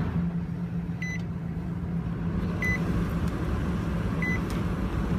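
2005 Nissan Armada's 5.6-litre V8 idling steadily just after starting, heard from inside the cabin. A dashboard warning chime beeps three times, about every second and a half.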